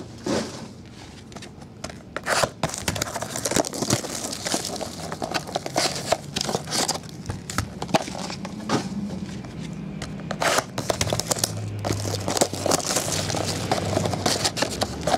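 Foil trading-card packs and their cardboard box being handled and unpacked: irregular crinkling and rustling of foil wrappers with sharp taps and clicks of packs and box against the table. A faint low hum sits underneath from about five seconds in.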